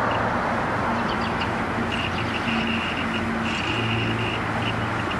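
Steady outdoor background noise, with a faint hum and whine from the Trimble VX Spatial Station's drive that comes and goes in short runs as the instrument steps across its scan grid.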